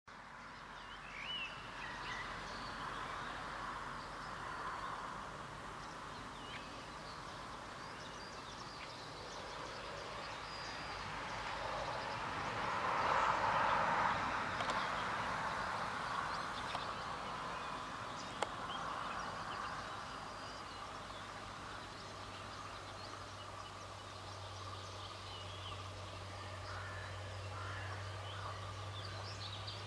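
Outdoor ambience with scattered bird chirps over a steady background hiss that swells for a few seconds around the middle. A low steady hum comes in during the second half, and there is a single faint click.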